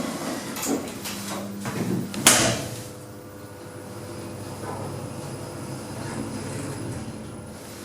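Sliding doors of an Otis Gen2 lift closing, shutting with a sharp knock a little over two seconds in, followed by a steady hum as the lift car travels.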